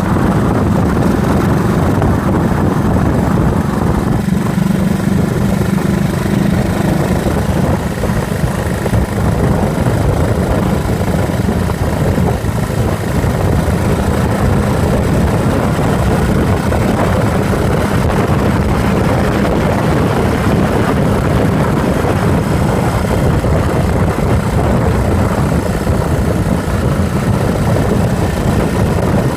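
Yamaha SRX400's air-cooled single-cylinder four-stroke engine running steadily while the motorcycle is ridden, heard close up from beside the fuel tank.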